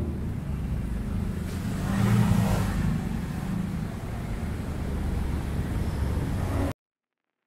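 Slow, congested street traffic: the engines of cars and motorbikes running close by, with one engine swelling louder about two seconds in. The sound cuts off abruptly near the end.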